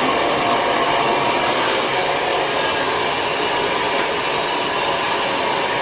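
Lange Soleil hair dryer blowing steadily, a constant rush of air and motor.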